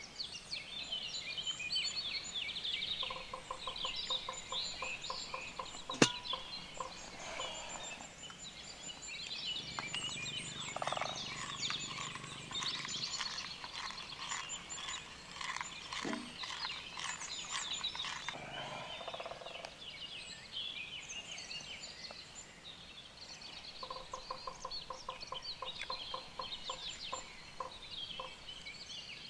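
Many birds chirping and calling together, with runs of rapid, evenly spaced lower notes in places. A single sharp click comes about six seconds in.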